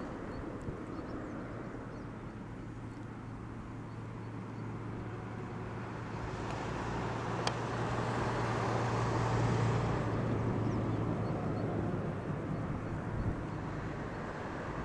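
Distant engine drone over outdoor ambience: a low steady hum that swells to its loudest about two-thirds of the way through, then eases off. One sharp tick about halfway.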